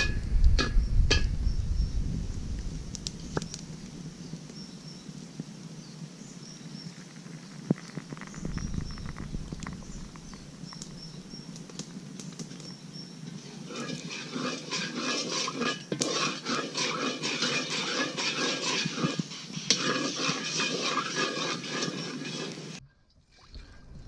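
Oil heating in a steel wok over a crackling wood fire, with scattered crackles and sizzles that turn denser and busier past the middle. Small birds chirp faintly in the first half.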